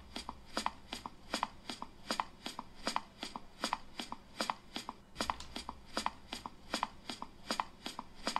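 Footsteps: crisp, even clicking steps, about three to four a second.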